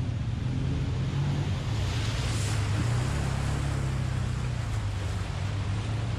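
Side-by-side UTVs driving through a muddy water hole: engines running with a steady low drone while muddy water sloshes and splashes around them, with a louder splash about two seconds in.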